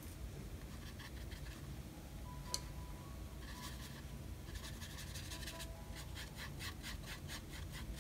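A small flat paintbrush brushing and scrubbing gouache onto sketchbook paper, softly. There is a single sharp tap about two and a half seconds in, then a run of quick rubbing strokes, about five a second.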